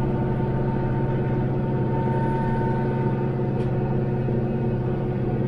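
Branson 5520CH tractor's diesel engine running steadily under load while its PTO drives a Titan rotary cutter through tall grass. There is a low steady drone with a steady high whine over it.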